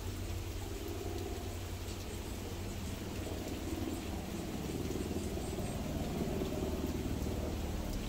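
Steady rain falling, heard from under a wooden roof overhang, with faint scattered drop ticks over a low steady rumble.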